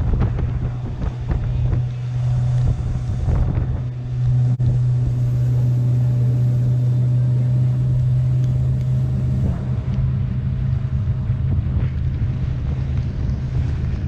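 Suzuki 115 hp outboard motor on a rigid inflatable boat running steadily at speed, a constant low drone, with wind buffeting the microphone and water rushing in the wake.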